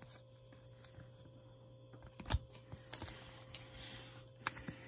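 Sleeved trading cards handled in a stack, giving quiet rustling and light plastic clicks as they slide against each other, with a sharper click about two seconds in and another near the end, over a steady low hum.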